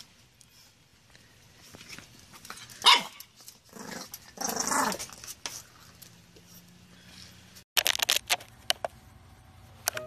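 English bulldog puppy barking: one sharp bark about three seconds in, then a longer, rougher bark-growl about a second later. After a cut, a quick run of short sharp sounds.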